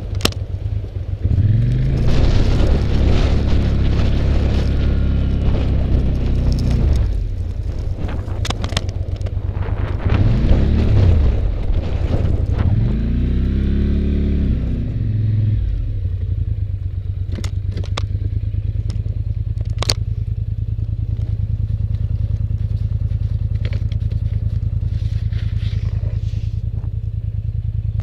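Polaris Sportsman 850 ATV engine revving up and down in several surges, then running steadily at a lower, even speed for the second half. A few sharp knocks sound over it.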